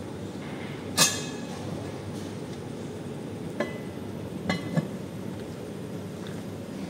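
A sharp metallic clink about a second in, then a few lighter clinks from serving tongs and lids among red enamelled cast-iron pots, over a steady low background rumble.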